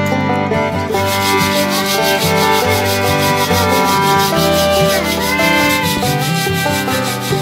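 Sand hissing as it pours through the holes of a perforated steel colander shaken back and forth, sifting the roasting sand from freshly popped corn. It starts about a second in and pulses several times a second, over background fiddle music.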